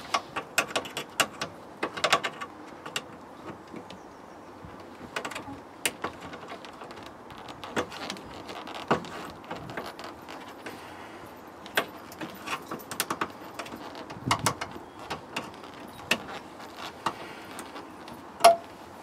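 Irregular clicks, taps and scrapes of a small screwdriver prying at plastic trim clips in the bare metal rear pillar of a car.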